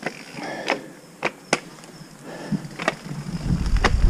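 Orbea Rallon mountain bike setting off down a dirt trail: a few separate sharp clicks and knocks from the bike, then a low rumble of tyres and wind that builds near the end as it picks up speed.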